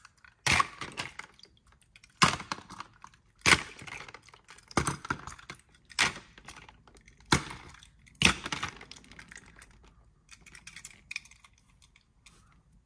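Hard plastic toy parts and a small toy car knocking and clacking as they are picked up and set down: about seven sharp clacks a second or so apart, then lighter ticking that fades near the end.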